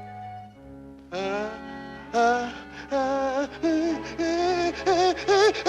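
Cartoon background music. A held chord fades out, then about a second in a melody of short notes comes in, each note dipping in pitch at its end, over a low pulsing bass.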